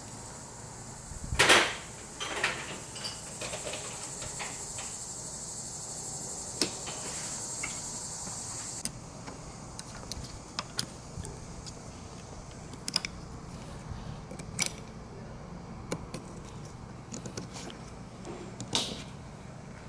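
Plastic saddlebag clasps and buckles clicking and knocking as they are fitted onto a motorcycle's side carrier rail, with one loud snap about a second and a half in and scattered lighter clicks after. A steady high buzz in the background cuts off about nine seconds in.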